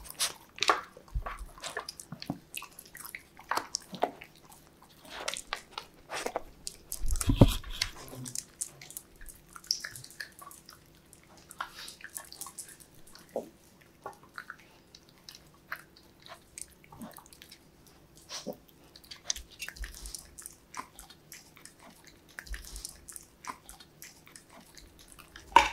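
Dogs chewing and crunching carrot and broccoli pieces from a steel plate: irregular crunches and clicks, with one louder thump about seven seconds in.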